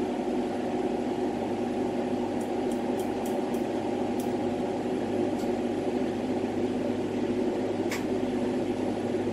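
Steady rushing of a lampworking bench torch flame, with a few faint light ticks between about two and five seconds in and once more near the end.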